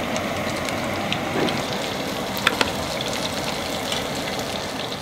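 Hot oil in a deep fryer sizzling steadily with scattered crackles and a couple of sharper pops about two and a half seconds in, as a bass egg sac deep-fries.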